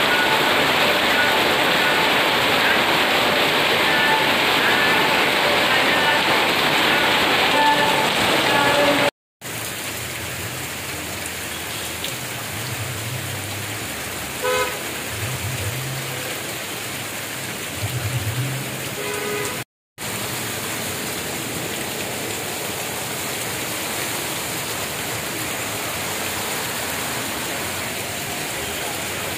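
Heavy rain pouring steadily, loudest in the first third. After a sudden cut it goes on quieter, with cars driving through standing water on a flooded road and a brief car horn toot about halfway through.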